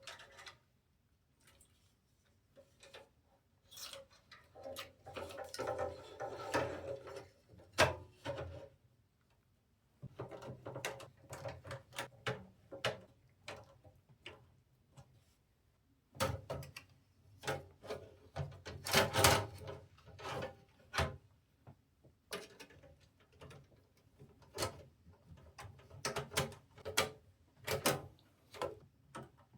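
Hands handling and fitting computer parts: a run of small clicks and knocks with stretches of rubbing and rustling in between.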